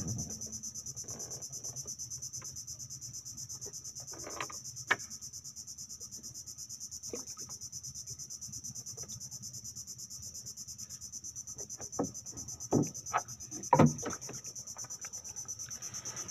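Steady high-pitched buzzing of insects, such as cicadas or crickets, over a low steady drone. A few sharp knocks come around 4 to 5 seconds in, and a louder cluster of knocks about 12 to 14 seconds in.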